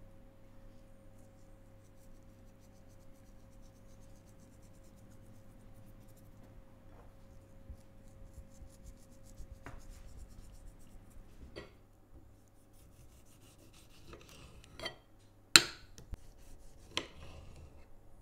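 Hands sprinkling a dry spice mix over raw chicken breasts and rubbing it in, soft rustling and rubbing over a faint steady hum. In the last few seconds a few sharp clicks and knocks; one about two-thirds of the way through is much the loudest.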